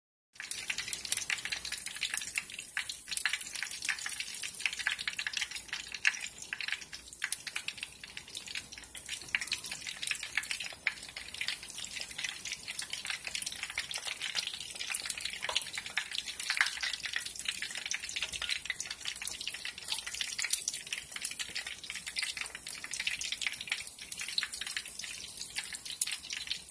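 Corn fritters deep-frying in a pan of hot oil: a steady, dense sizzle with many small crackling pops.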